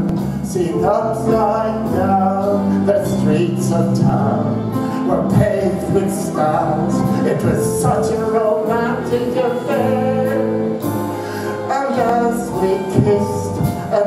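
A man singing a slow ballad into a microphone over a steady instrumental accompaniment.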